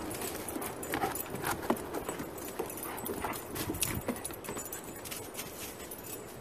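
Paws and claws of two large dogs, one an Irish wolfhound, knocking and clicking irregularly on wooden deck boards as they walk about.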